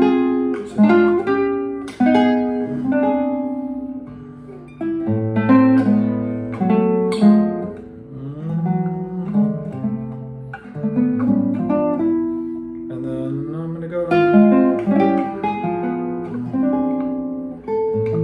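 Nylon-string classical guitar playing a slow series of fingerpicked chords, each plucked and left to ring, with short gaps between phrases.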